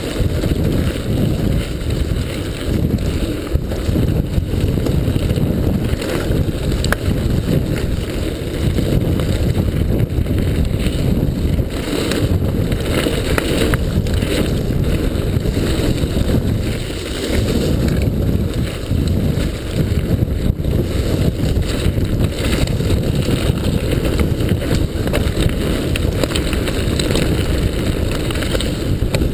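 Wind rumbling on the microphone of a mountain bike ridden fast down a rough gravel trail, with the bike rattling and the tyres clattering over stones in many short knocks throughout.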